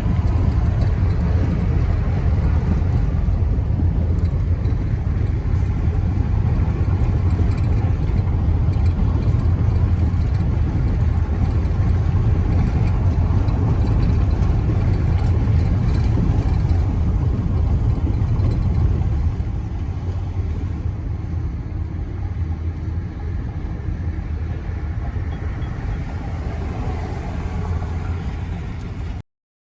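Steady low rumble of a vehicle driving over a brick-paved road, heard from inside: tyre and road noise with the engine underneath. It eases off somewhat about two-thirds of the way through, then cuts off suddenly near the end.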